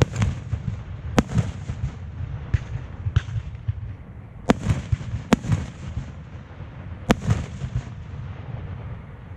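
Fireworks bursting overhead: several sharp bangs a second or more apart, with crackling and a low rumbling echo between them, dying away near the end.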